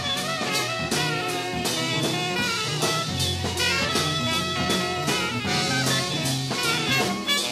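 Recorded jazz ensemble playing, heard from a cassette dub of a 1974 studio master reel: drum kit keeping a steady beat under the band, with a held low note coming in about three seconds in.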